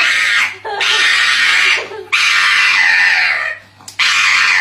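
Pug screaming in repeated long, high-pitched cries, each a second or more, with brief breaks between them, while its front paw is held.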